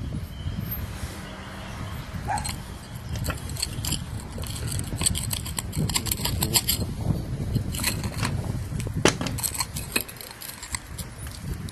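Metal clinks and light rattles of turbocharger parts and hand tools being handled during disassembly, with a cluster of quick sharp clicks about five to seven seconds in, over a steady low rumble.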